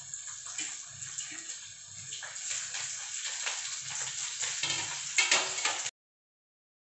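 Sliced onion and green chillies sizzling and crackling in hot oil with fried diced potato in a kadai, the spitting growing louder over the first few seconds. A few sharper crackles come about five seconds in, then the sound cuts off abruptly.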